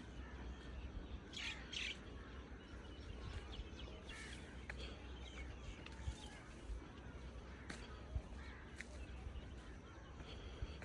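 Crows cawing every couple of seconds, with some smaller birds chirping, over a steady low rumble.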